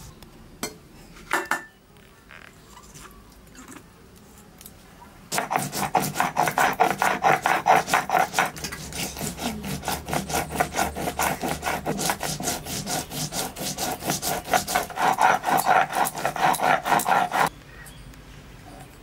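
Stone pestle (nora) rubbed back and forth over mustard seeds on a flat grinding stone (shil), grinding them to a paste: a run of quick, rhythmic scraping strokes that starts about five seconds in and stops abruptly a second and a half before the end. Two short knocks sound about a second in.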